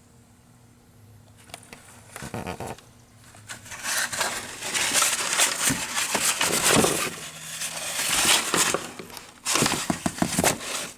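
A kitten scrambling and clawing in a cardboard box, making a run of rapid scratches, scrapes, rustles and small knocks on the cardboard. There is a short bout about two seconds in, a long stretch from about four seconds, and a last burst near the end.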